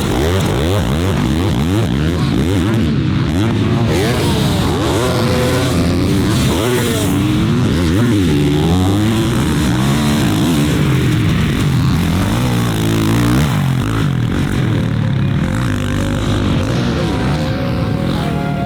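Several motocross dirt bikes riding on a track at once, their engines revving up and down through the gears with pitches overlapping and crossing.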